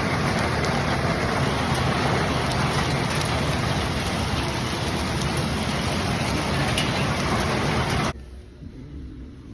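Heavy rain and hail pouring down in a dense, steady hiss with faint scattered ticks. It cuts off abruptly about eight seconds in.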